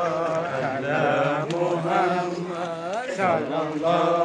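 Voices chanting in long, wavering, drawn-out lines over a steady low drone, with a rising-then-falling swoop about three seconds in.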